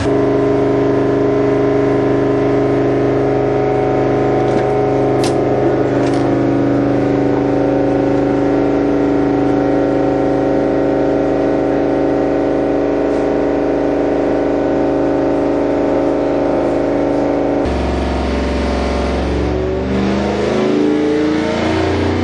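Ford 351 Cleveland V8 running on an engine dyno, held at a steady speed of around 3,000 rpm with an even note. About 18 seconds in the note changes and climbs as the engine is pulled up through the revs under load.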